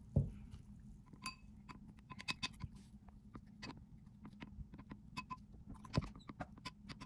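Metal spoon stirring a thick flour-and-water paste in a glass bowl, with faint, irregular clinks and taps of the spoon against the glass and a couple of duller knocks.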